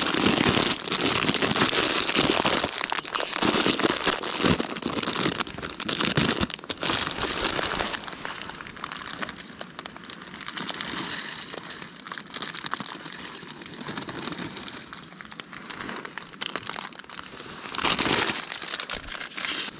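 A plastic bag of dry pasta crinkling as it is opened and handled, with the pasta tipped into a cooking pot partway through. The crinkling is strongest early on and flares up again near the end as the bag is folded shut.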